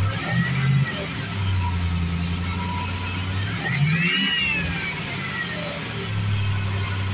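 2003 GMC Sierra engine running at idle and revved briefly twice, a small blip about half a second in and a stronger one about four seconds in. The stronger rev brings a whine that rises and then falls away as the engine settles back to idle.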